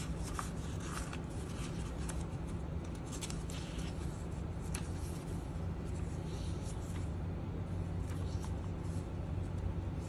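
Paper pages of a handmade junk journal being turned by hand: short rustles and flicks every second or so, over a steady low hum.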